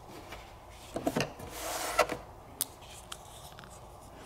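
Hard plastic toy kitchen pieces handled by hand: a few light clicks about a second in, then a short rustle ending in a sharp click about two seconds in, and one more click soon after.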